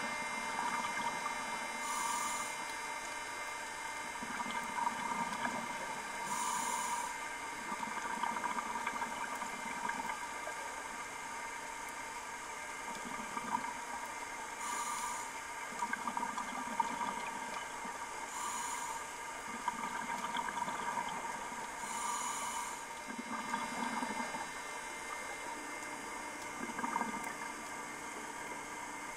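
Scuba diver breathing through a regulator underwater: a short hiss on each inhale every few seconds, each followed by a low bubbling exhale, over a steady hum.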